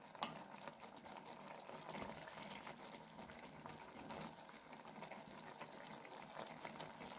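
Faint simmering of whole chickens cooking in a little water and oil in a large aluminium pot, a low bubbling hiss with small crackles.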